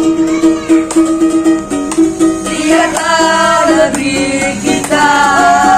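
Ukulele strummed in a steady rhythm, with a man's singing voice coming in about halfway through.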